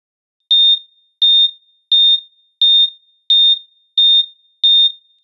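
Electronic countdown beeps: seven short, identical high-pitched beeps, evenly spaced at about three every two seconds, starting about half a second in.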